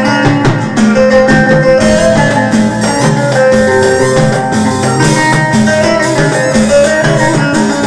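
Electric guitar played with a pick, running a quick melody of many short plucked notes over repeated low notes, without a break.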